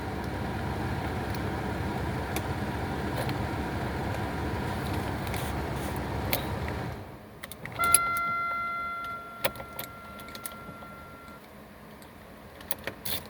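A steady mechanical running noise cuts off suddenly about seven seconds in. Then come clicks of a key and metal parts in a car's ignition lock cylinder, and a steady electronic warning chime that sounds for about three and a half seconds.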